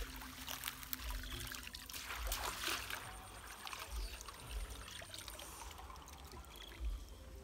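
Water sloshing and pouring as a woven bamboo basket is dipped into a shallow stream and lifted out, water draining through its weave. The rush of water is strongest about two to three seconds in.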